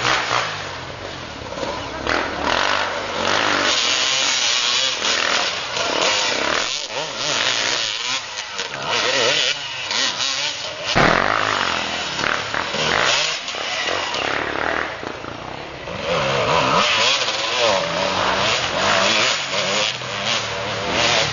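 Two-stroke enduro dirt bikes revving hard, the engine note rising and falling again and again.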